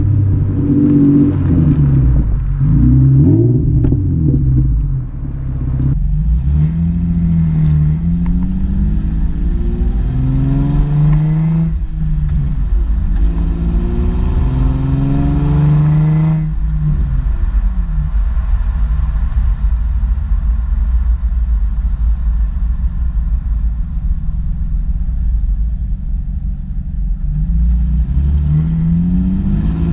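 Nissan 350Z's 3.5-litre V6 with the muffler deleted: loud exhaust revving up and down for the first few seconds. Then, with the car under way, it accelerates with rising pitch through three upshifts, settles into a steadier drone, and pulls up again near the end.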